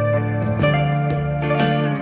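Instrumental background music: sustained notes over a steady bass, with a new note or beat about once a second.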